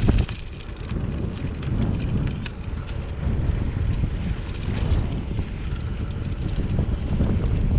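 Wind buffeting the microphone of a moving bicycle rider, a steady low rumble, with scattered light clicks over it.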